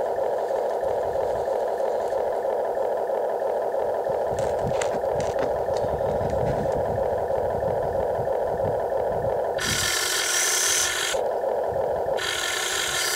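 Huina radio-controlled wheel excavator's electric motors and gears running as it works its arm and bucket: a steady drone, broken by two harsher, higher bursts of about a second and a half each, the first about ten seconds in and the second about two seconds later.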